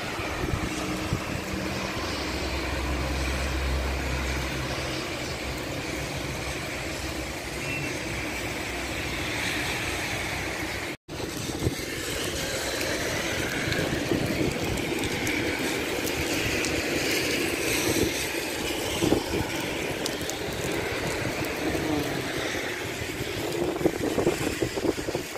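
Cars passing on a rain-soaked road, a steady noise of tyres on wet asphalt, with a low rumble from a passing vehicle a few seconds in. The sound drops out for an instant about eleven seconds in.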